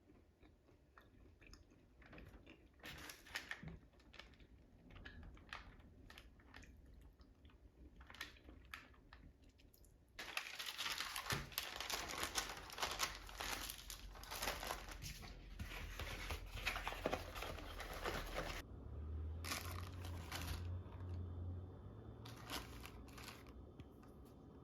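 Crinkling and rustling with scattered small clicks, like wrapping being handled. About ten seconds in it turns into a dense, louder run of rustle that lasts several seconds, then thins out again.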